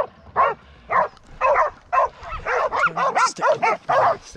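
Pig dogs barking steadily at bay, the sound of a bail: the dogs are holding a wild boar cornered. The barks come about two a second, then come quicker and overlap in the second half as more than one dog joins in.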